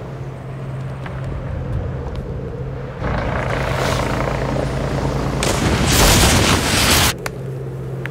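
A sound-designed rushing whoosh comes in about three seconds in and swells to its loudest near six seconds. It cuts off suddenly about seven seconds in, over a steady low drone.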